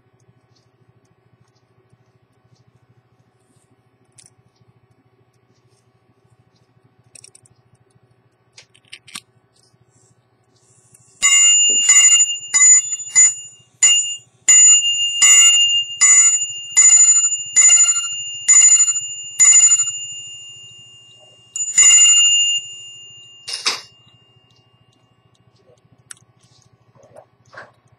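Repeating mechanism of a 1744 Dobson silver-cased quarter-repeater pocket watch sounding the time: a few faint clicks, then its hammer strikes the bell in a quick even run of about two blows a second for some nine seconds, each blow ringing and fading. After a short pause there is one more strike, then a sharp knock.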